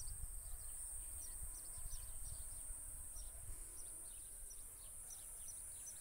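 Rural outdoor ambience: small birds giving many short, high chirps over a steady high-pitched insect drone and a low rumble.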